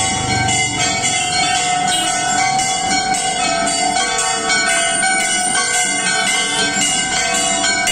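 Temple bells rung over and over during an aarti, a fast, steady clanging with many overlapping ringing tones.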